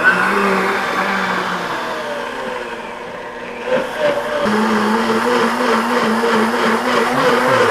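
Blendtec countertop blender running at speed, pureeing avocado with olive oil and salt. Its hum changes about four and a half seconds in and carries on steadily after.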